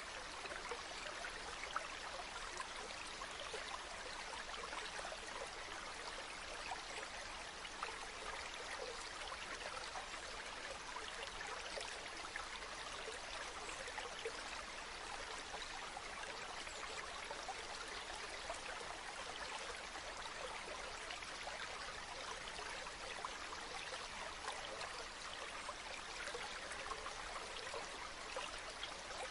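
A small river or stream flowing steadily over stones, an even rushing with fine splashes and trickles.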